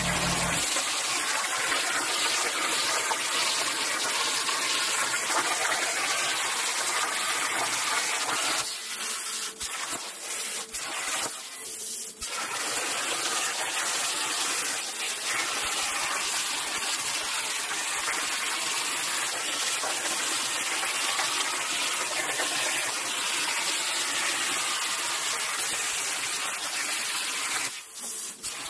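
CNC cutting head cutting 14-gauge steel sheet: a steady loud hiss of the cut. It breaks off briefly about nine and twelve seconds in and again just before the end, as the cut stops between shapes.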